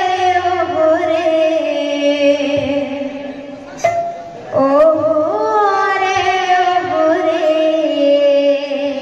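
Odia devotional kirtan music: a singer holds two long notes of about four seconds each, each sliding slowly down in pitch. Between them, a little under four seconds in, there is a single sharp clash.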